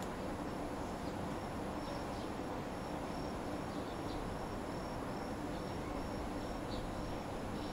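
An insect chirping in short, even, high-pitched pulses, about three a second, over a steady low hum of the town.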